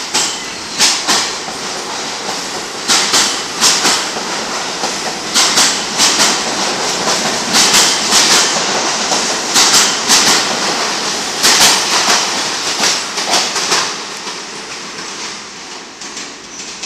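R46 subway train pulling out of the station, its wheels clicking over rail joints in groups of sharp clicks every second or two over a steady rumble. The sound fades near the end as the last car heads down the tunnel.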